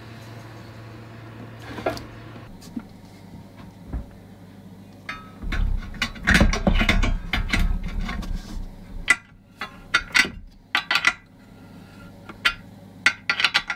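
Metal clinks and clanks of a spanner and parts being worked against an aluminium skid plate while a diesel heater is fitted to it. The sounds are busiest and loudest in the middle, then become scattered clinks, over a steady low hum.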